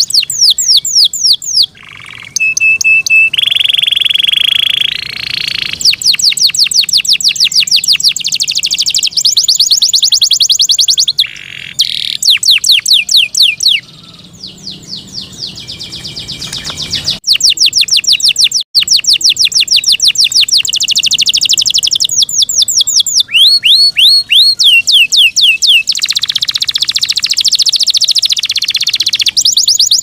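Yorkshire canary singing loudly: fast trills of rapidly repeated notes, broken by a few held steady tones, with a short lull around the middle.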